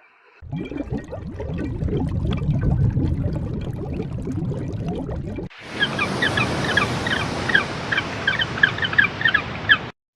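Animal sounds in two short clips: first a low, dense jumble of calls, then, from about six seconds in, quick high chirps over a hiss.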